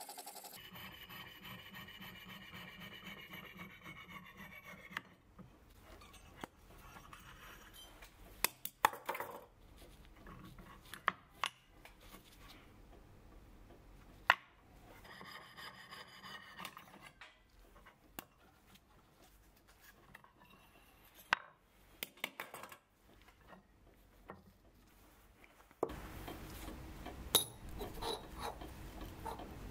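Piercing saw cutting through a cast brass disc in rapid strokes, stopping about five seconds in; then scattered sharp clicks and light knocks of the cut brass pieces being handled and set down.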